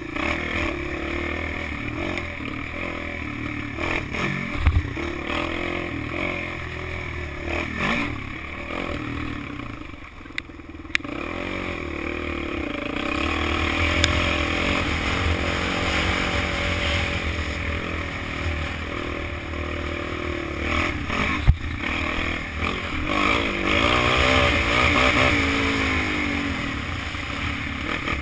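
Kawasaki KFX400 quad's single-cylinder four-stroke engine revving up and down as it is ridden over a dirt track, heard from a helmet-mounted camera. The engine eases off about ten seconds in, then picks back up. Rattling from the machine runs under it, with a few sharp knocks from bumps.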